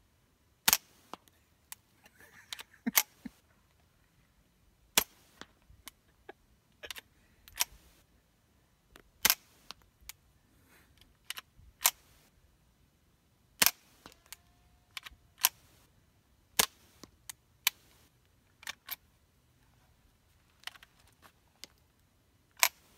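Suppressed .22 LR shots from a Ruger 10/22 with a homemade conical-baffle suppressor, firing CCI Quiet 22 40-grain subsonic rounds at 710 fps: a string of short, quiet reports a few seconds apart, with smaller sharp clicks between them. These low-powered rounds do not fully cycle the semi-automatic action.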